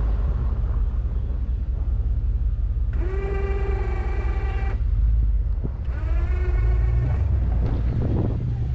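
Pickup truck engine running with a steady low rumble. Twice, about three and six seconds in, an electric-hydraulic snow plow pump whines steadily for a second or two as it moves the blade.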